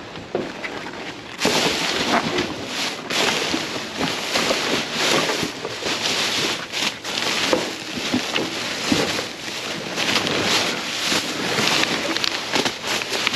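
Plastic garbage bags crinkling and rustling as gloved hands pull at them and dig through them, a dense crackle of small clicks that starts abruptly about a second and a half in.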